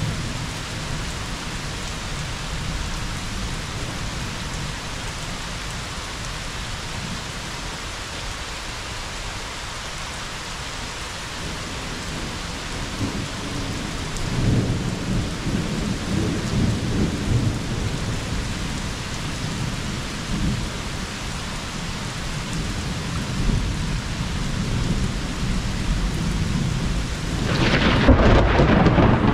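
Steady rain hissing throughout. Thunder rumbles low from about halfway and builds, and a louder, sharper clap of thunder breaks in near the end.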